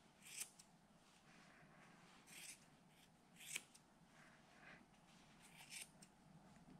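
Scissors snipping through an angora rabbit's belly wool: quiet, crisp snips about once a second, some in quick pairs.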